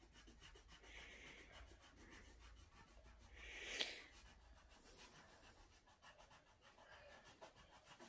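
Faint scratchy rubbing of a pencil on paper as a child colours in, the strokes clearest about four seconds in.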